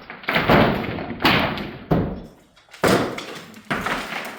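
Heavy blows striking old wooden stair and floor framing during demolition, landing about once a second, each a sharp thud with a short ringing echo after it.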